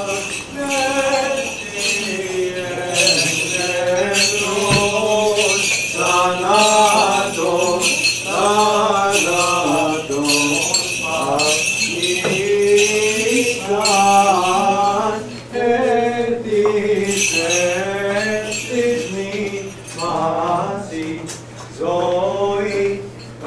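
Voices singing an Orthodox liturgical chant, with the small bells of a swinging censer jingling over it in repeated bursts that pause now and then.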